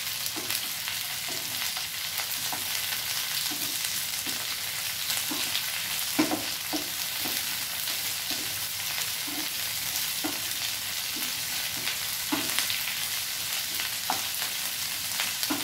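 Ivy gourd and sliced onion sizzling in hot mustard oil in a ceramic-coated frying pan while a spatula stirs and tosses them. A steady hiss of frying, with short scrapes and knocks of the spatula against the pan every second or so.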